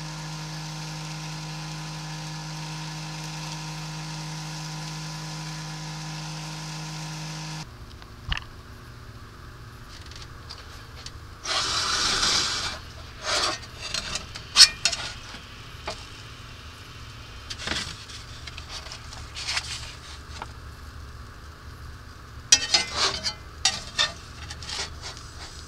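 An omelet sizzling steadily in a cast iron skillet on a gas burner; the sizzle cuts off abruptly about eight seconds in. After that come scattered scrapes and knocks against the cast iron skillet, loudest about twelve seconds in and again near the end.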